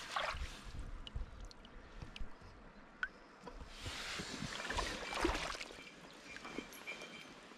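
Shallow river water splashing and sloshing at the bank: a short burst at the start and a longer, louder one about four seconds in, over the steady low wash of the stream.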